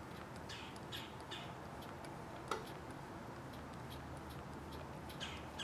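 Faint scattered clicks of a hex screwdriver turning a small screw by hand into an RC truck's axle, with one sharper click about two and a half seconds in.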